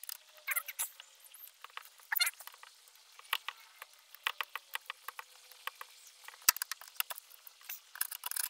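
Hand screwdriver backing out a screw from a boat's rear panel: irregular small scrapes and clicks of the tip working in the screw head, with one sharp knock about six and a half seconds in.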